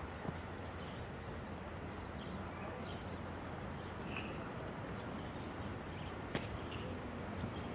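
Steady outdoor background noise with a few short, faint high chirps or clicks scattered through it; no level-crossing warning bell is sounding.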